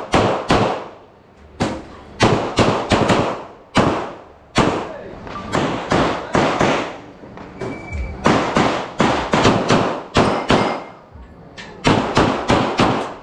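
Pistol shots fired rapidly in quick strings of two to four, separated by short pauses, each shot sharp with a brief echo: a practical-shooting competitor engaging targets at speed.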